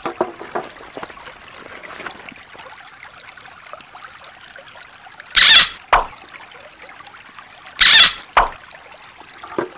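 Shallow stream trickling over rocks. About five seconds in and again about eight seconds in, there is a short, loud burst of noise, each followed by a brief sharp knock.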